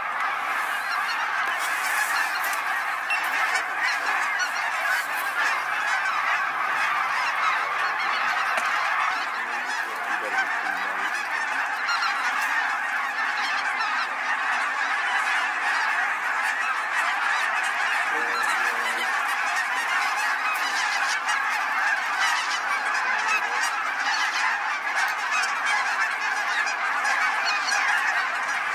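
A large flock of geese circling overhead, many birds calling at once in a dense, unbroken chorus of honks.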